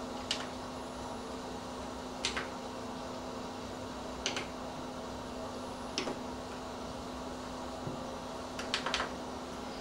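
Buttons on a synthesizer workstation's front panel clicking as they are pressed, one click every two seconds or so and two in quick succession near the end, over a steady low hum.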